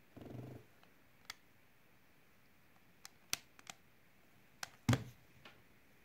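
Hard plastic clicks and taps from a Rubik's-cube-style lamp being handled and turned in the hands: a short low buzz right at the start, then a scatter of sharp clicks, the loudest a knock just before 5 seconds in.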